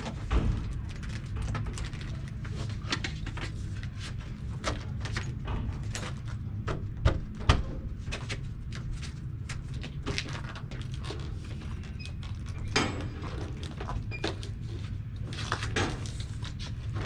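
Aluminum window screens being fitted back into the window frame: scattered clicks and knocks of the screen frames against the aluminum track, with two sharper knocks about seven seconds in, over a steady low rumble.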